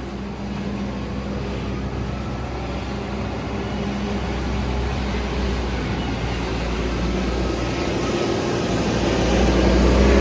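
Engine of a small wheel loader running steadily as it drives along the stable aisle and scoops up heaped manure and straw. It grows louder over the last few seconds as the machine comes close.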